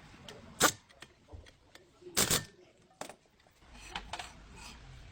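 Several sharp clicks and knocks: a loud one about half a second in, a louder double knock a little after two seconds, another near three seconds, then a cluster of lighter ticks near the end.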